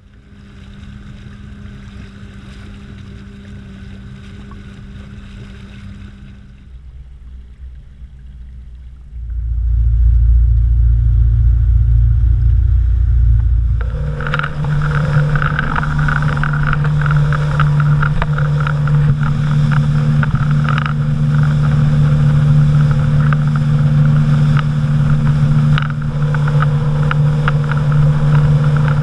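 Yamaha outboard motor on a small boat, first running at a low steady hum, then, after a loud low rumble of about five seconds, running at speed with a strong steady drone over the rush and splash of water.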